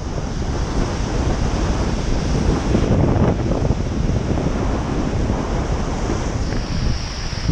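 Steady wind noise buffeting a bike-mounted camera's microphone while riding, mixed with the hiss of tyres and passing traffic on a wet road.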